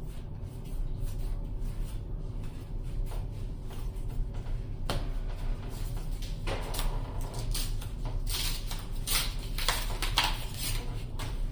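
Yu-Gi-Oh cards and booster-pack wrappers being handled: scattered rustles and light clicks, busiest in the last few seconds, over a steady low hum.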